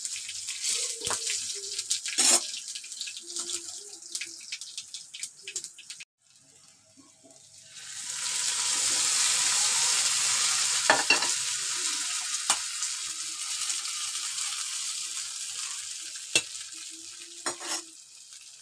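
Tadka of cumin, mustard seeds, garlic, red and green chillies and curry leaves crackling and spattering in hot oil as it is stirred in the pan. About eight seconds in, the hot tempering hits the yogurt kadhi with a loud hiss that fades over several seconds, with a few sharp knocks of metal.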